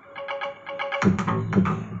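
Electronic rap backing track without vocals: short repeated synth notes over a held tone, then a heavy drum-and-bass beat comes in about a second in.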